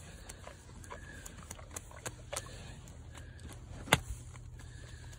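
A show boar walking over grass, with scattered light taps and clicks and one sharp, loud tap about four seconds in, over a low steady rumble.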